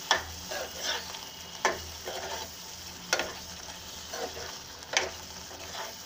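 A steel spoon stirring boiled potato pieces through a thick green coriander-garlic paste in a frying pan, with four sharp knocks of the spoon against the pan, about every one and a half seconds, and softer scraping between them, over a faint steady sizzle.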